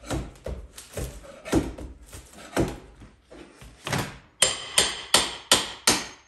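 Hand hammer striking repeatedly, about a dozen blows, while working molding off a kitchen cabinet. The last five blows, near the end, come quicker and sharper.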